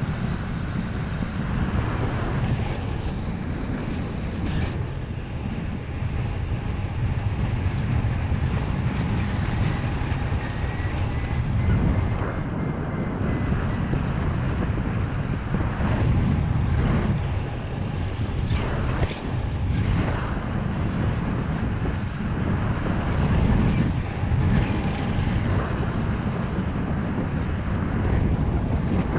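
Airflow buffeting the microphone of a camera carried by a paraglider in flight: a steady low rumble of wind noise that swells and eases in gusts.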